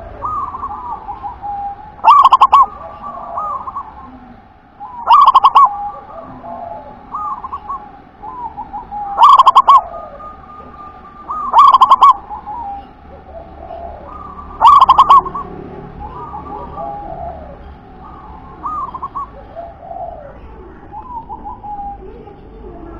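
Zebra dove (perkutut) singing its staccato cooing song: five loud phrases of rapid repeated notes, about one every three seconds, with softer short coos between them and after the last one.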